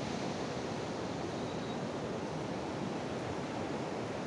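Ocean surf breaking on a sandy beach: a steady, even wash of waves.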